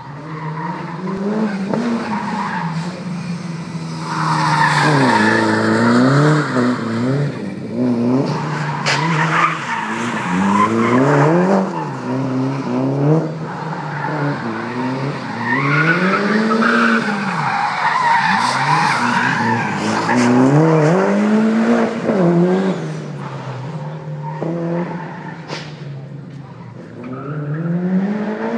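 Rally-prepared Mitsubishi Lancer driven flat out around a tight cone course: the engine revs up and drops back over and over as it accelerates, brakes and changes gear, with the tyres squealing and skidding on the tarmac through the turns.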